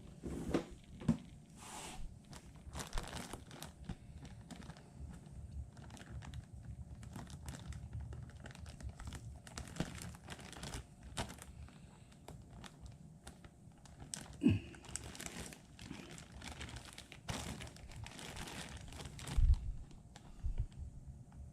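Plastic packaging crinkling and tearing as it is handled, with scattered clicks and light knocks and a dull thump near the end.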